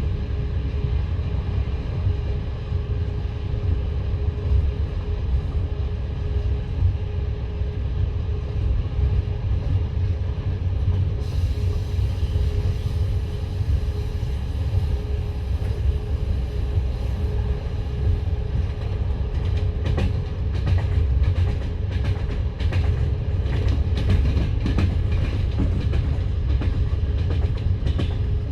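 Passenger train carriage rolling along the track: a steady, loud rumble of wheels on rail with a steady hum. About two-thirds of the way in, a run of sharp wheel clicks over the track begins and continues to the end.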